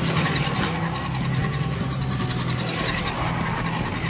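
A 1:10 scale RC crawler driving over sandy ground, its motor running steadily.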